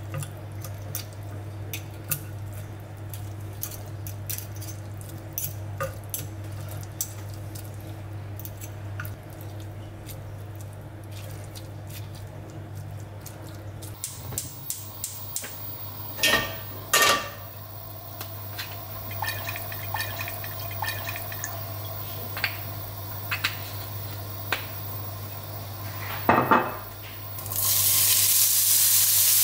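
Two metal forks tapping and scraping on a wooden cutting board as they shred jackfruit, a run of light clicks. Then a few sharp clicks from a gas stove's burner knob. About two seconds before the end, jackfruit drops into hot oil in a frying pan and a loud, steady sizzle starts suddenly.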